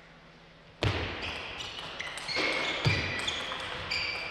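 Table tennis rally starting about a second in: sharp clicks of the celluloid ball off rackets and table, with shoes squeaking on the court floor and a low thump at the start.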